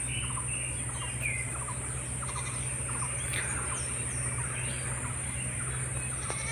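Scattered short bird chirps over a steady, high-pitched insect drone and a low, steady hum.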